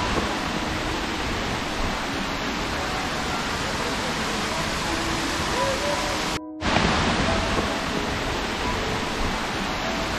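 Steady rush of a rocky stream and its small waterfalls. It cuts out abruptly for a moment about six and a half seconds in, then resumes.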